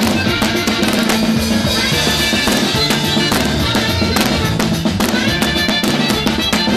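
Live band music: a drum kit played at a steady fast pulse, with cymbal and drum hits over a moving bass line and sustained melody notes.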